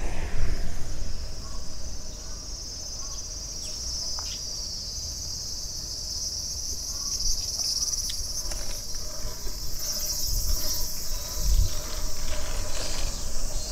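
Cicadas buzzing in a steady, high-pitched summer chorus that swells about three seconds in, over a low rumble.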